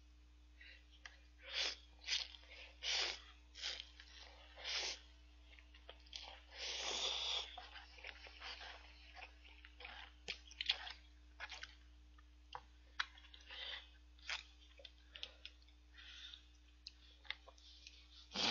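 A person slurping and chewing ramen noodles eaten with chopsticks. Short slurps and mouth sounds come every second or so, with one longer slurp about seven seconds in.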